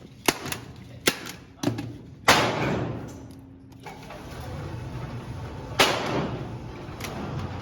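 Several sharp knocks and bangs in an echoing room. The two loudest, about two and six seconds in, ring out and fade over a second or so.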